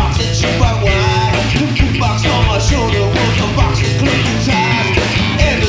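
Loud rock music with a singing voice, a driving bass and drum beat and guitar.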